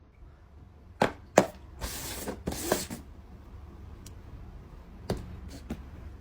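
Two sharp knocks, then two short bursts of hissing noise, then a few faint taps.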